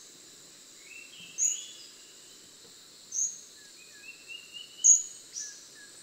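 Forest ambience: a steady high insect hum under short, sharp, high bird calls repeated about every one and a half to two seconds, with softer, lower chirping notes between them.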